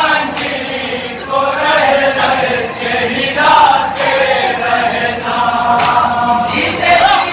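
A group of men chanting a nauha, a Shia mourning lament, in unison, singing a drawn-out melody that carries on without a break.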